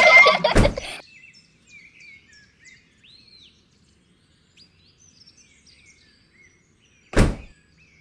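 A brief loud noise at the start, then faint bird chirps in the background, and a single sharp thunk about seven seconds in as the stack of painted wooden craft boards is set down on the toy trailer.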